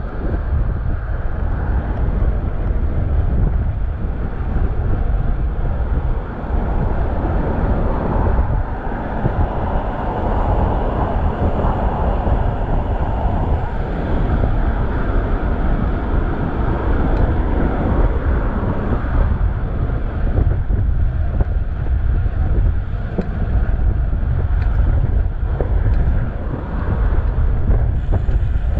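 Wind buffeting the microphone of a chest-mounted action camera on a moving bicycle, a steady heavy rumble, with road traffic going by and swelling around the middle.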